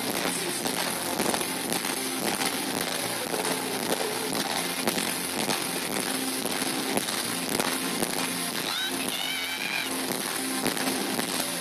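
Live pop-rock band playing loud through a concert PA: drums, acoustic, electric and bass guitars. The recording is harsh and distorted.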